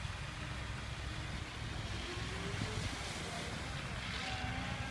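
Mitsubishi Triton ute's engine running with a steady low drone as it is driven through beach sand.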